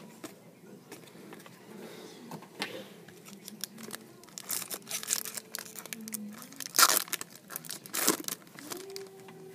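Foil trading-card pack wrapper crinkling and being torn open by hand, with two loud rips in the second half.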